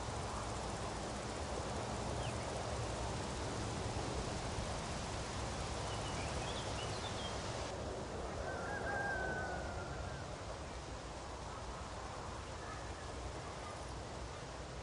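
Outdoor meadow ambience: a steady background hiss with a few faint bird calls, a brief chirping about six seconds in and a longer call around eight to nine seconds. The hiss turns suddenly duller about eight seconds in.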